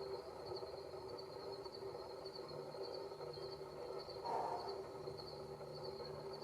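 Outdoor ambience of insects chirping steadily in a continuous high-pitched pulsing trill, over a faint low hum.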